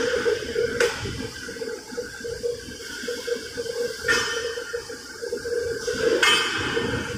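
Workshop machine that makes holes in metal plates, running with a steady hum. Three short bursts of hiss come through, with light metallic clinks.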